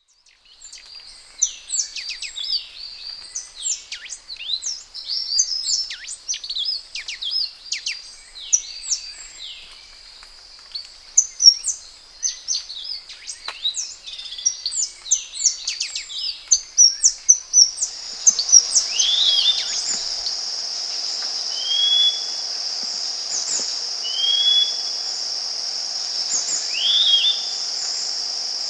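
Forest birds calling with many short, sweeping chirps, overlapping each other. About two-thirds of the way in, a steady high-pitched insect drone takes over, with a lower hum beneath it and a few separate bird calls above.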